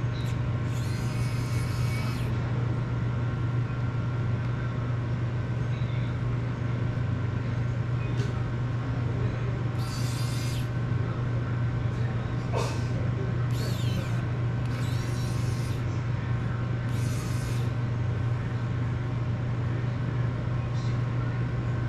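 A steady low hum, broken every few seconds by short hissing bursts, each about a second long: solder and flux sizzling under the soldering iron as power leads are soldered to an FPV drone's flight controller.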